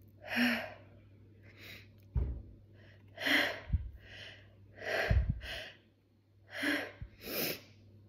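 A woman's sharp, breathy pre-sneeze gasps, about seven of them, as a cotton swab tickles inside her nose and she fights the urge to sneeze. There are a few dull low thumps between the gasps.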